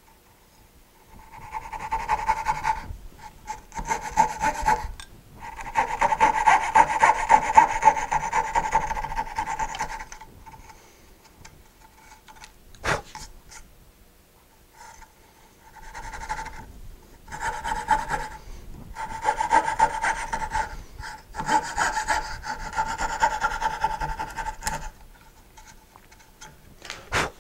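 Knew Concepts fretsaw's fine blade sawing through pine with rapid back-and-forth strokes, cutting out the waste between dovetail tails. The sawing comes in two spells of several seconds each, with a single sharp click between them.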